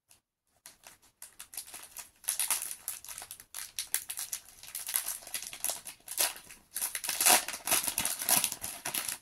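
Foil Pokémon booster pack wrapper crinkling and crackling as it is torn open by hand. It starts about two seconds in and goes on in quick irregular crackles, loudest near the end.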